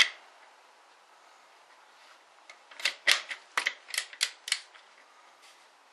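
Sharp metallic clicks of a socket and torque wrench being fitted onto a truck's lug nut: one click right at the start, then a quick irregular run of about eight clicks near the middle.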